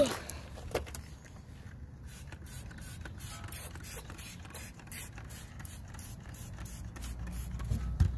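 A handheld trigger spray bottle squirted again and again in quick succession, misting cleaner onto a car's alloy wheel. A sharp knock comes right at the start.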